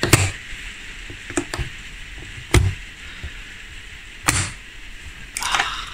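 Spring-loaded steel latch on an aluminium flight case being flipped and snapped, a series of sharp metal clacks, the loudest about two and a half and four seconds in, with a short rattle near the end.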